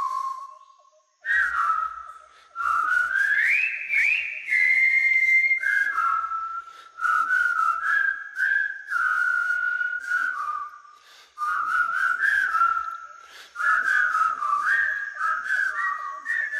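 A person whistling a tune: one melodic line of held and sliding notes, in phrases broken by short pauses.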